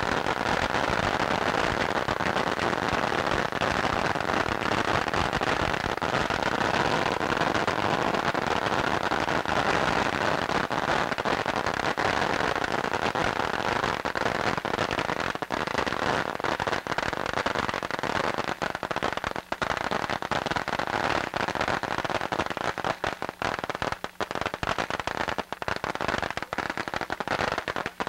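A pile of firecracker strings going off in a dense, continuous crackle of rapid bangs, breaking up into more separate cracks in the second half.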